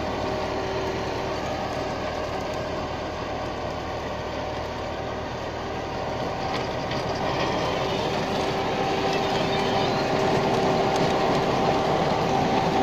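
Tractor-drawn potato digger at work: the tractor engine runs steadily under load while the digger's rod-chain elevator rattles, shaking soil off the lifted potatoes. The sound grows louder over the last few seconds.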